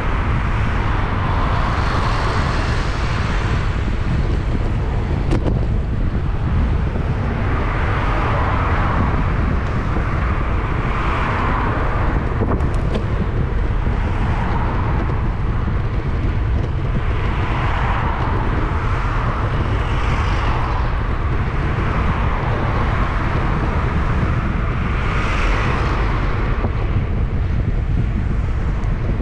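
Wind buffeting a bike-mounted action camera's microphone while cycling, a steady low rumble, with a rushing sound that swells and fades every few seconds as traffic passes.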